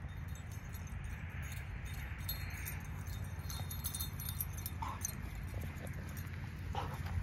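Shepherd-mix dog trotting across grass with a toy in her mouth, with light metallic jingling and clicking as she moves, over a steady low rumble.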